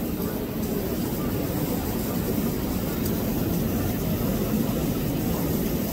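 Steady low rumbling background noise with no distinct event standing out.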